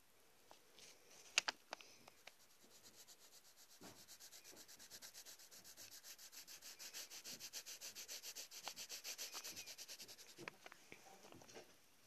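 Pencil shading on paper: quick back-and-forth scratching strokes, about five a second. The strokes grow louder toward the middle and stop about ten and a half seconds in. A few sharp taps come about a second and a half in.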